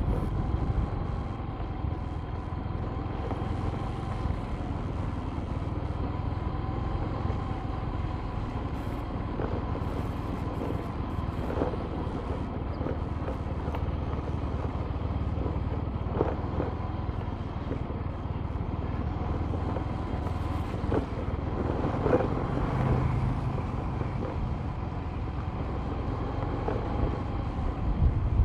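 Vehicle engine running steadily with road and tyre rumble as it drives slowly along a concrete road, a faint wavering whine over the low rumble and a few light knocks from bumps.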